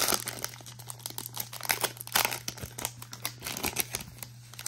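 Plastic wrapper of a 2021-22 Donruss basketball card pack crinkling and tearing as it is ripped open and handled: a dense run of irregular crackles, loudest at the start and again about two seconds in.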